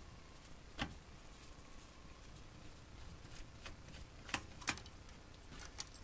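Faint, scattered clicks and ticks of a hand screwdriver backing a small Phillips-head screw out of a sheet-steel cable-card cage, about half a dozen clicks in all, most of them in the second half.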